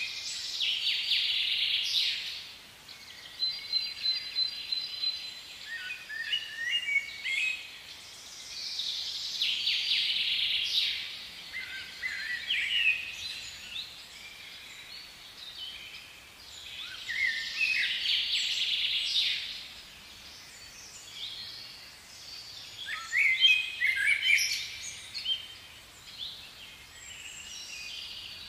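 Birds singing and calling: quick chirps and trills in phrases that come every several seconds.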